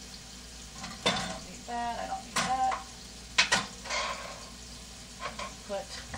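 Ground-beef patties sizzling quietly in a nonstick frying pan. Over the sizzle come several sharp clatters and short ringing clinks of kitchen items being handled and set down.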